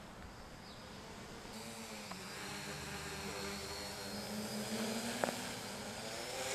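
Quadcopter's electric motors and propellers buzzing in flight, several pitches shifting slightly as the throttle changes and growing louder a couple of seconds in. A short sharp click about five seconds in.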